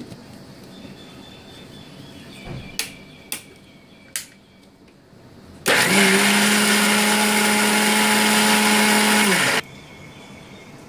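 A few sharp clicks, then an electric kitchen blender starts abruptly and runs at a steady speed for about four seconds before cutting off. It is grinding soaked toor dal and chana dal with a little water into a coarse paste.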